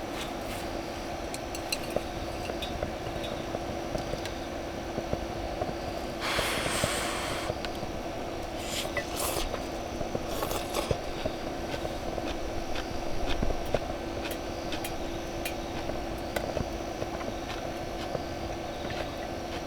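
A steady hum over a constant rushing noise, with scattered light clicks and clinks of cookware, and a short hiss about six seconds in.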